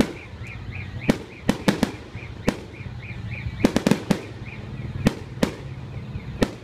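Aerial firework shells bursting overhead: an irregular series of sharp bangs, about fifteen in all, with a quick cluster of four or five near the middle.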